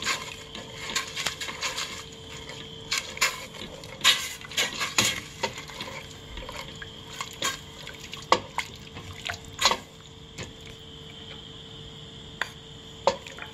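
Wooden spoon stirring water in a stainless steel saucepan: liquid sloshing, with irregular taps and knocks of the spoon against the pot.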